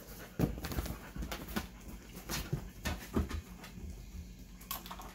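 Dogs moving about during a scent search: scattered taps and thumps of paws and claws on the floor and a small metal stool, with sniffing.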